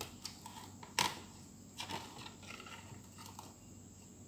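Two-piece fishing rod handled on a stainless-steel kitchen scale: a sharp knock about a second in, then lighter taps and short rubbing as the rod is shifted on the platform.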